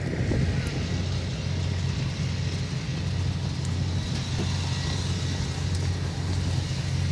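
Truck engine idling steadily: a low, even hum.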